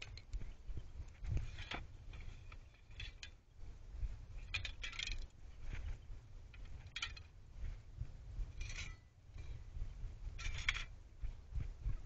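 Short scuffs and scrapes of shoes and handled objects on gritty dirt ground, about six, a second or two apart, over a steady low rumble.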